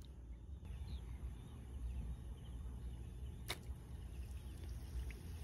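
Low rumble of wind on the microphone by a river, with one sharp click about three and a half seconds in.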